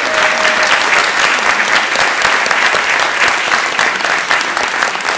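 Audience applauding, a loud, dense, steady clapping that cuts off abruptly.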